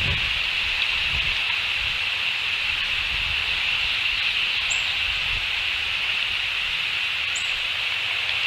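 Steady outdoor nest-cam ambience: a continuous high-pitched background chorus with low wind rumble on the microphone. Two short, high, falling chirps come about two and a half seconds apart, the first about halfway through.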